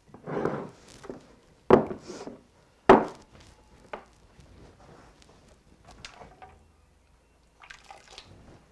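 Glass canning jars being handled and set down on a wooden cutting board: two sharp knocks about two and three seconds in, then lighter clicks and a short clatter of kitchen items near the end.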